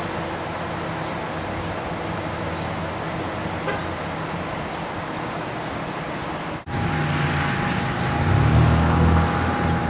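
Steady road traffic noise. About six and a half seconds in it breaks off and is replaced by a louder low rumble with a steady high whine.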